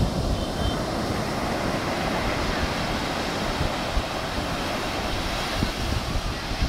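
Rough sea surf breaking and washing up a sandy beach in a steady rush, with wind buffeting the microphone.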